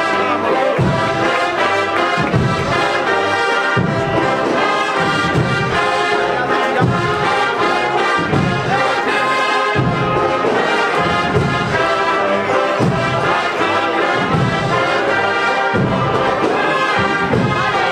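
Agrupación musical, a Spanish processional brass band of trumpets, cornets and low brass, playing a Holy Week march over a steady drum beat of about one thump a second.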